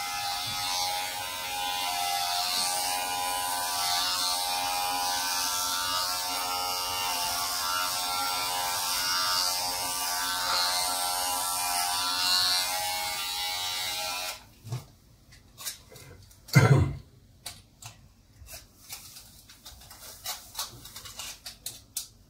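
Corded electric hair clippers buzzing steadily as they shave a man's head, then switched off about two-thirds of the way through. A few light clicks and one short, louder sound follow.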